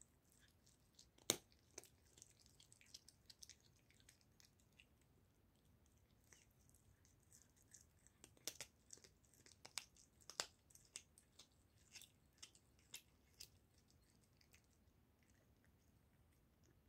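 Domestic tabby cat chewing a raw goose neck, a string of irregular sharp wet clicks and crunches close to the microphone. The loudest click comes about a second in, the clicks bunch up through the middle, and they die away near the end.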